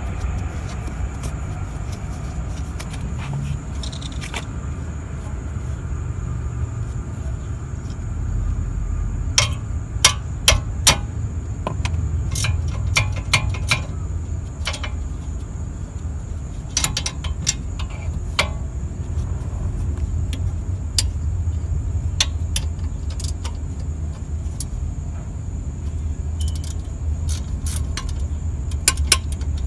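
Sharp metallic clinks and taps of a hammer striking a wrench on the 16 mm caliper bracket bolts of a car's rear brake, to break the bolts loose. They come in irregular clusters from about nine seconds in, over a steady low rumble.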